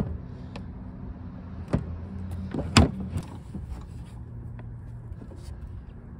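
Stretched hard saddlebag being set onto a Harley-Davidson touring motorcycle's mounts: a few separate knocks and clunks, the loudest a little before halfway, over a steady low hum.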